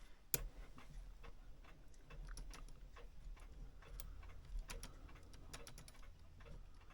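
Irregular light clicks and taps from clock movement parts and small tools being handled while a Herschede clock movement is reassembled, with one sharper click about a third of a second in.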